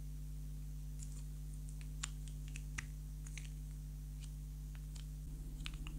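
Small hard-plastic clicks and taps as fingers pry a Hello Kitty and Friends mini figure out of its pink plastic toy cup, a quick irregular run of them starting about a second in, two a little louder than the rest.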